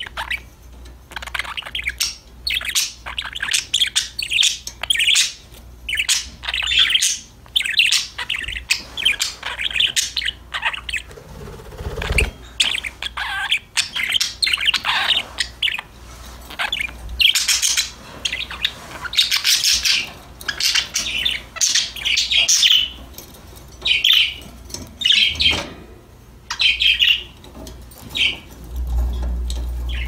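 Pet budgerigars chattering: a busy run of quick, high chirps, warbles and squawks, broken by short pauses.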